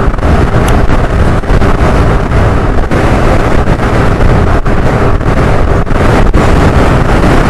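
Heavy wind noise on the microphone of a Suzuki scooter riding at about 80 km/h, gusting unevenly, with a faint steady hum of the engine and tyres underneath.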